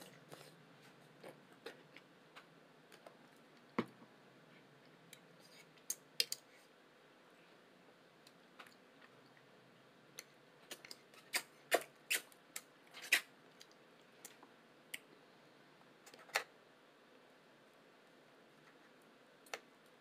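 Eating sounds: scattered sharp clicks and smacks, bunched together a little past the middle, with quiet stretches between.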